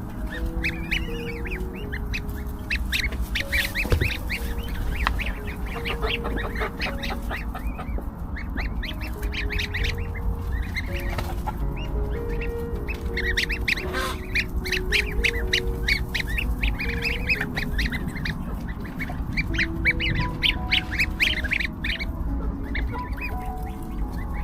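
Several newly hatched goslings peeping continuously, a dense stream of short high-pitched peeps.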